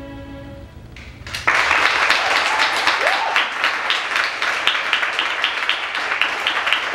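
The last held note of the string accompaniment dies away, then about a second and a half in a theatre audience breaks into loud, sustained applause with one cheer among it.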